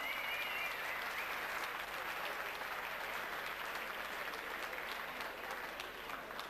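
Large indoor crowd applauding steadily, with a high wavering whistle that stops within the first second.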